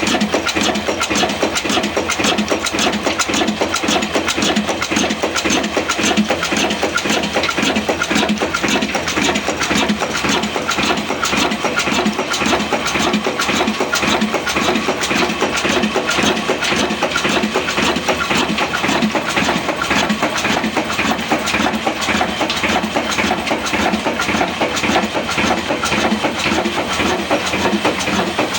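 Kala diesel engine running steadily on furnace oil, a continuous fast pulsing beat with no change in speed.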